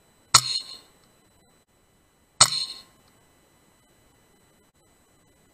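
Two pre-charged pneumatic air rifle shots about two seconds apart, each a sharp crack followed by a brief metallic ring.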